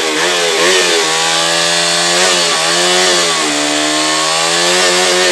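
KTM Duke 200's fuel-injected twin-cam single-cylinder engine held at high revs, its pitch wavering with small dips and rising again near the end.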